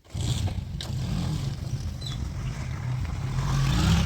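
Heavy diesel engine running with a steady low drone that grows louder near the end.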